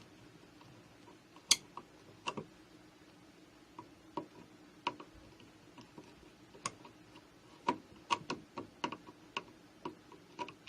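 Screwdriver backing out the mounting screws of a wall light switch: irregular small metallic clicks and taps, a sharp one about one and a half seconds in and a quick run of them near the end.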